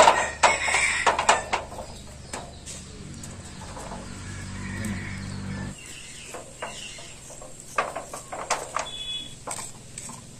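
Hair being scraped and rubbed off a scalded goat head by hand on a metal sheet: runs of short scraping strokes, with a pause of a few seconds in the middle filled by a low steady hum.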